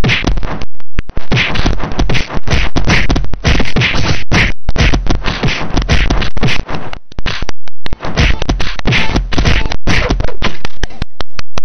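Cartoon fight sound effects: a fast, loud string of punch and kick hits and whacks, with a few brief breaks between the flurries.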